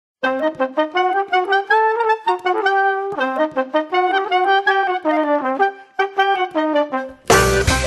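Music: a solo brass melody of short notes, joined by a full, louder band sound near the end.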